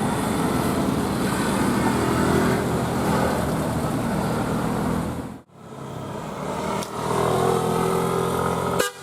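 Road vehicle engines running as traffic passes, steady apart from a sudden brief drop-out about five and a half seconds in. Near the end the engine sound rises, and a bus's musical telolet horn starts tooting in quick pulses.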